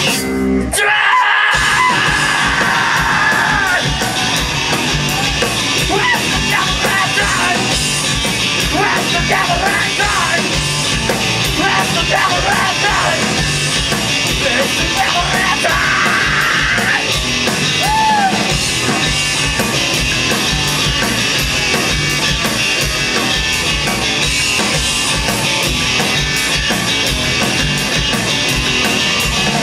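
Live garage-punk rock band playing loud: distorted electric guitar, bass and drum kit, with vocals over them. The band stops for a moment about a second in, then crashes back in.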